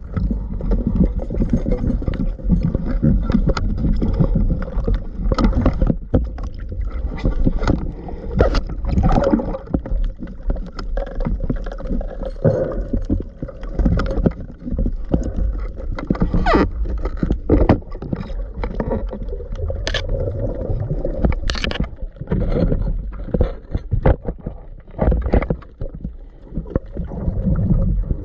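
Water sloshing and gurgling, muffled as heard underwater through an action camera's housing while a spearfisher swims, with many irregular clicks and knocks.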